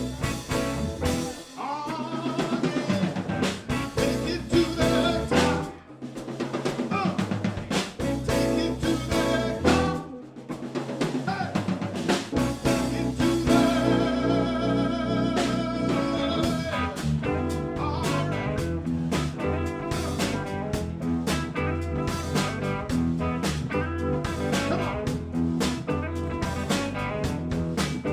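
A live blues band plays the instrumental introduction of a song on electric guitar, bass, keys and drum kit. Short stop-start phrases with brief breaks settle into a steady groove about sixteen seconds in.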